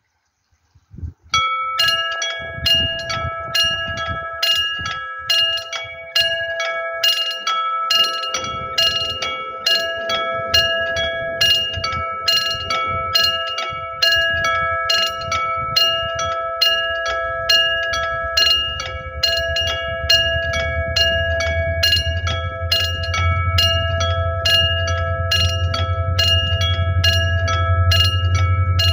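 Railway level crossing warning bell ringing in quick repeated strikes, starting about a second in, as the crossing closes. A low rumble builds steadily through the second half: the approaching train.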